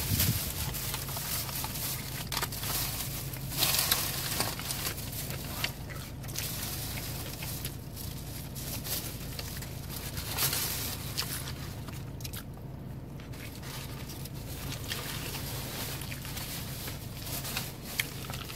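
Close-up chewing and mouth sounds of someone eating a loaded sub sandwich, with scattered crunches and crackles of handling, over a steady low hum.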